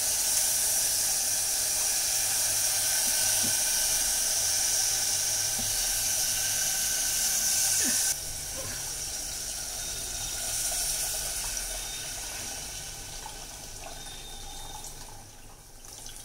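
Tamarind-water curry of dried fish simmering in a pot on a gas stove: a steady watery hiss that drops sharply about eight seconds in.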